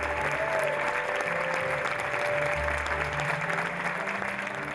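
Theatre audience applauding, with music playing underneath: a slow bass line and a few long held notes.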